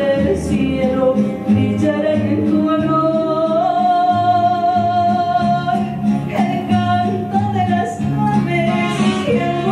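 A woman singing a slow song into a handheld microphone over backing music, holding one long note in the middle.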